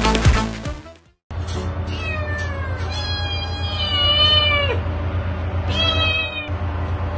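Brass jazz music fades out in the first second. After a brief gap, a cat meows: one long meow that rises and falls in pitch, then a shorter one, over soft background music.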